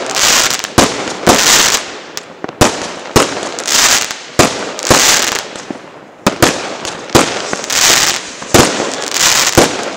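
Fireworks going off in quick succession: a dense string of sharp bangs, several of them followed by a short hissing burst.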